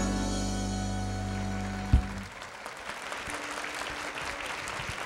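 The song's last chord held by the backing music, closed by a sharp final stroke about two seconds in, then the studio audience applauding.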